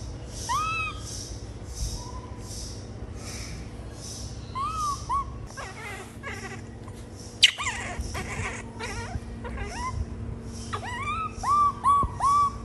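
Infant macaque giving short, arched whimpering coo calls: a few scattered calls, one sharp high squeak a little past the middle, then four in quick succession near the end. A faint high hiss pulses about twice a second behind them.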